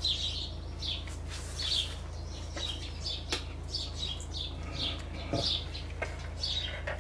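Small songbirds chirping and tweeting over and over, short high calls every half second or so, with one light click about three seconds in.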